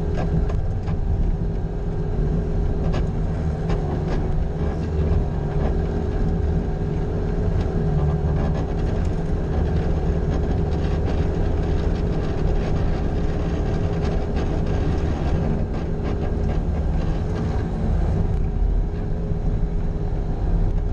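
Bobcat skid-steer loader's engine running steadily under load, with a constant higher whine held above the engine note and a few faint clicks and knocks.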